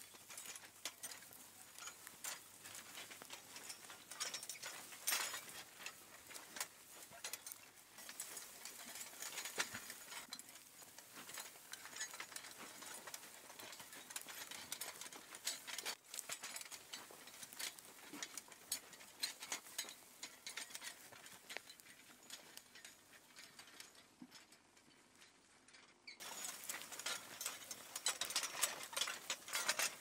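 Horse-drawn potato plow being dragged through dry soil: the iron share scraping and crackling through earth and clods, and its chain traces clinking, in many irregular small clicks. It gets louder for the last few seconds.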